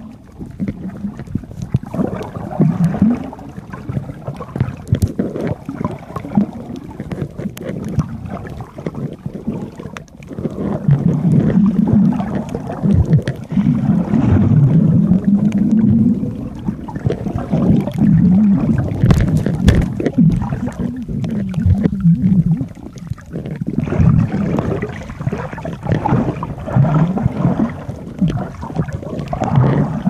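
Muffled underwater sound from a submerged camera: a low, wavering rumble of moving water and bubbles as a swimmer moves close by, with scattered sharp clicks. It gets louder from about ten seconds in.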